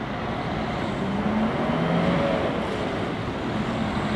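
Steady city street traffic noise: a rush of passing vehicles with a faint engine hum, a little louder in the middle.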